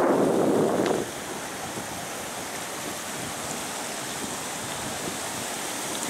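Steady rush of river water running over the rock shelf at the top of Laxapana Falls, louder for about the first second and then an even hiss.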